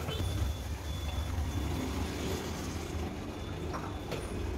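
A spatula stirring diced ridge gourd through thick masala in a nonstick kadhai: soft scraping and shuffling of the vegetable pieces over a steady low rumble, with a couple of light clicks near the end.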